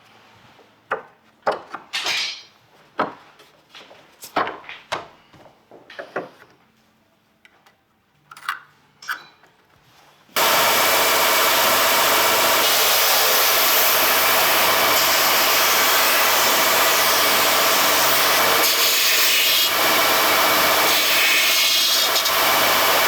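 Scattered knocks and scrapes of wood being handled, then a woodworking power tool comes in suddenly about ten seconds in and runs at a steady, even level, cutting or working wood.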